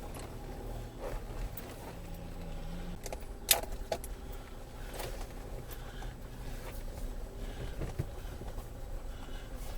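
A vehicle running low and steady, with light rattling and clicking over it and one sharp click about three and a half seconds in.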